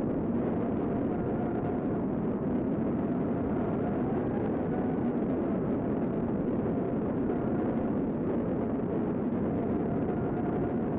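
Tornado wind: a steady, dense rushing roar with a faint wavering whistle running over it.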